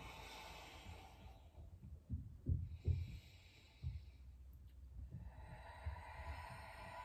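A woman's slow, deep breathing: a long, soft breath about a second in and another from about five seconds in. A few faint low thumps fall between them.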